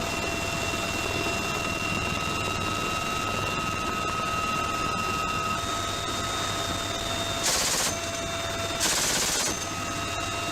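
Two short bursts of M134 minigun fire, each a buzz of about half a second, about 7.5 and 9 seconds in. Between them runs the steady noise and whine of the aircraft carrying the gun.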